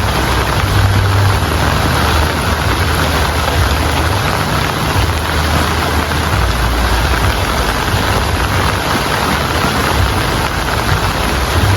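Steady heavy rain with a low rumble underneath that swells and fades.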